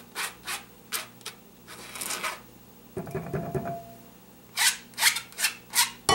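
Rubber spatula scraping kefir grains against a plastic mesh strainer in a string of short scraping strokes, with a break of about a second midway.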